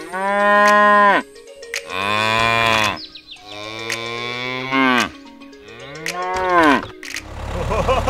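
Cows mooing: four long moos one after another, each one dropping in pitch as it ends.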